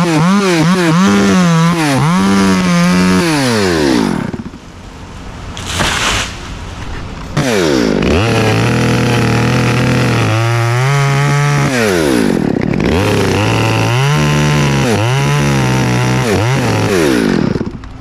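Chainsaw cutting into a cottonwood trunk. Its engine revs up and down for about four seconds and drops away briefly, then runs again from about seven seconds in, sinking lower in pitch under load as it cuts, before it cuts off near the end.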